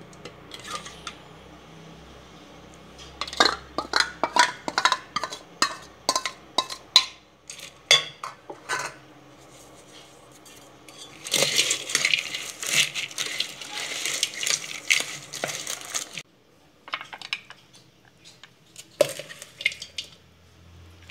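A ladle clinking and scraping against a stainless steel bowl while tossing a potato and nimki salad: a run of sharp clinks, then several seconds of dense rustling scrape that cuts off suddenly, then a few more clinks.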